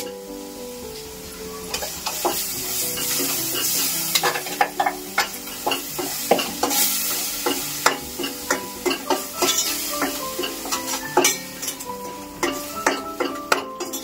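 Steel spoon stirring, scraping and clicking against a stainless steel pot while masala fries in hot oil with a sizzle. The sizzling is loudest between about two and eight seconds in.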